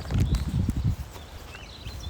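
Wind buffeting a phone's microphone, with irregular low thumps from walking footsteps, strongest in the first second and then easing.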